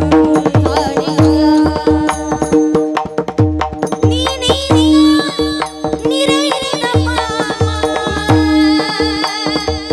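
Marathi Warkari abhang sung by a woman's voice over a steady drone. Small taal hand cymbals clash and a hand drum keeps a regular beat.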